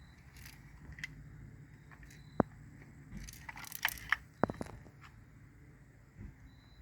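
Light clicks and clattering of small plastic model tank parts being handled, with a short cluster of clicks and crackles about three and a half to four and a half seconds in.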